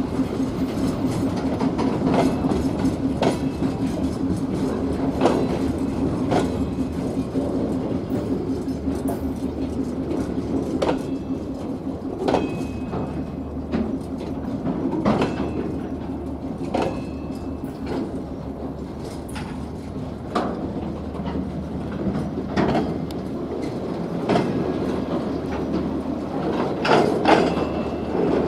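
Freight train of open-top gondola wagons rolling past, steady rumble with the wheels clacking over rail joints at uneven intervals. Brief high-pitched wheel squeals come now and then.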